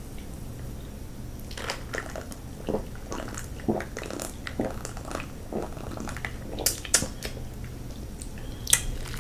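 Close-miked mouth sounds of drinking: sips, swallows and lip smacks as a short irregular run of soft clicks, over a faint steady hum.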